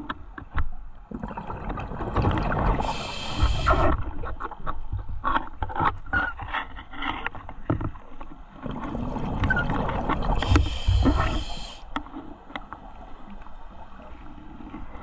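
Scuba diver breathing through a regulator underwater, the exhaled bubbles rushing and gurgling past the camera. Two loud breaths come about seven seconds apart, with quieter scuffing and handling noise between them.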